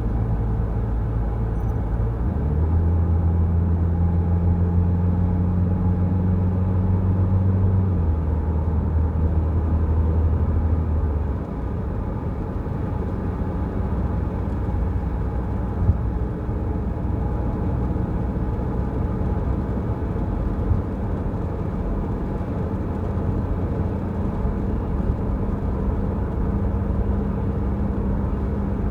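Peugeot Rifter driving on a wet road: a steady engine hum under tyre and road noise. The engine note steps up about two seconds in and drops back around eight and again around eleven seconds in. There are a couple of light knocks later on.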